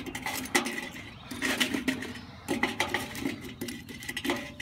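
Charcoal briquettes clinking and clattering as they are picked out and set down one by one, a run of irregular light clicks and knocks.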